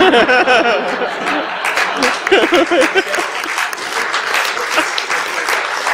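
Conference audience laughing and calling out, then breaking into applause that carries on to the end, with many hands clapping.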